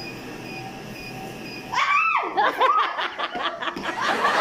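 A laser hair-removal machine beeps faintly several times in an even rhythm while it pulses. Then, a little under two seconds in, a woman breaks into high-pitched cries and laughter.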